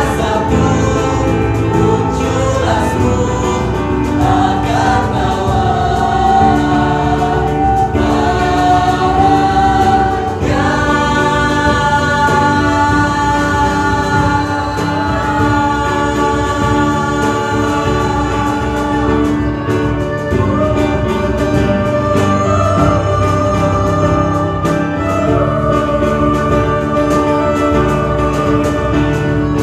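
A school vocal group of mixed male and female voices singing in close harmony, with long held chords, accompanied by violin and guitar.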